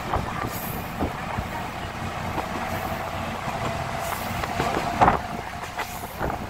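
Diesel railcar running along the track, heard through an open window: a steady rumble with a few knocks of the wheels over rail joints, the loudest about five seconds in. A faint steady whine sounds for a few seconds in the middle.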